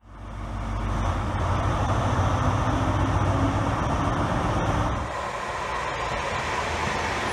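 A High Speed Train's Class 43 diesel power car running at a platform with a deep steady engine hum, fading in at the start. About five seconds in it cuts to a Class 323 electric multiple unit running through a station with a lighter rushing rumble.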